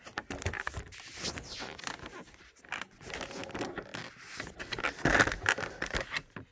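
Handling noise from a phone being repositioned by hand: fingers rubbing and scraping close to its microphone, with scattered clicks and rustles, loudest about five seconds in.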